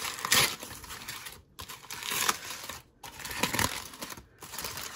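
Aluminium foil crinkling and rustling as it is pulled open by hand from around baked potatoes, in three spells with two short pauses.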